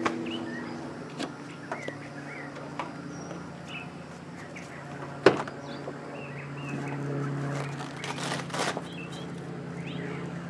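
Outdoor ambience of a low steady vehicle hum that swells about seven seconds in, with small birds chirping throughout. A sharp knock about five seconds in and a few clicks a little later come from handling the Jeep's open door and soft-top window.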